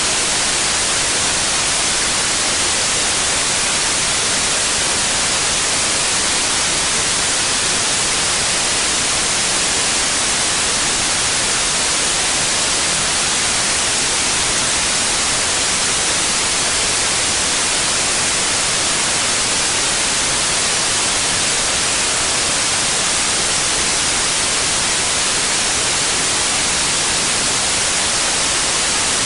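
Steady synthetic white noise: an even, unchanging hiss, brightest in the high treble.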